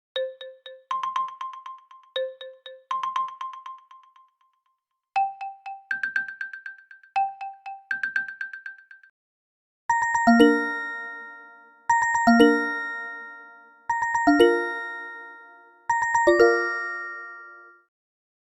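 OnePlus Nord CE phone ringtones: a short, bright melody of struck, marimba-like notes played twice, then after a brief gap a different chime figure of ringing bell-like tones that repeats four times, about every two seconds.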